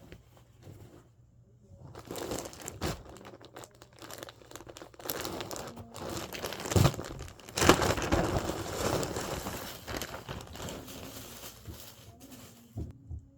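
Crinkling and rustling of packaging being handled, in irregular bursts that grow busier in the middle, with a few sharper crackles.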